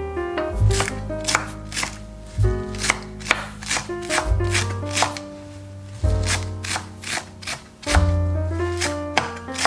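Knife chopping on a cutting board in quick, irregular strokes, over soft background piano music.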